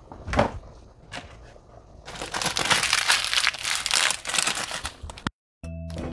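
Crinkly plastic packaging of a seasoning sachet being handled, a dense crackling that starts about two seconds in and lasts about three seconds before cutting off suddenly. A short knock comes about half a second in, and background music starts just before the end.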